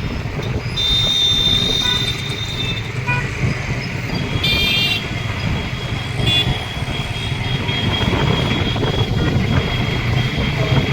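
Traffic heard while riding a two-wheeler: steady engine, road and wind noise, with vehicle horns honking, a longer one about a second in and shorter ones near the middle.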